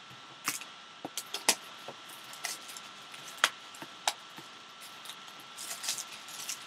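Plastic shrink wrap crinkling and crackling in short irregular bursts as hands work it off a sealed trading-card box, with light taps of the box being handled; the crinkling grows denser a little before the end.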